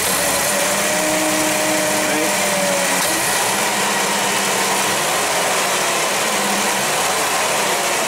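Propane-fuelled Toyota 7FGCU30 forklift engine running, with the throttle opened at the start and the revs falling back slowly toward idle over the first few seconds. The engine runs rich and idles rough, while its MAP sensor reads near atmospheric at idle.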